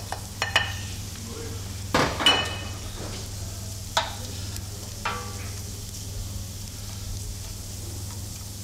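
Shredded cabbage tipped from a plate into a copper sauté pan of melted butter and onions, then stirred with a wooden spoon over a low gas flame: a soft sizzle with several sharp knocks of spoon and plate against the pan, the loudest about two seconds in, over a steady low hum.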